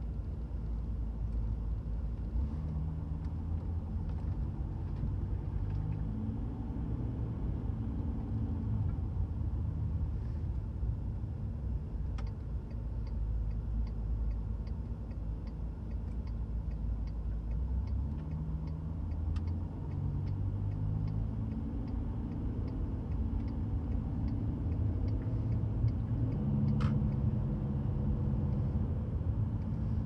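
Volkswagen Touareg's V10 TDI diesel engine running from inside the cabin, mostly at idle, its note shifting and climbing near the end as revs rise to about 1300 rpm. A light regular ticking runs for several seconds midway, and a single sharp click comes near the end.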